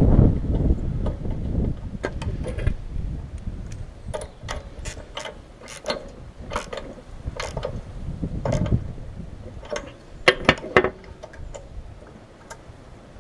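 Socket wrench on the mounting bolts of a Briggs & Stratton Classic carburettor being refitted to a mower engine: a run of sharp metallic clicks, about three a second, loudest a little after ten seconds in. Low rumbles of wind on the microphone at the start and again past the middle.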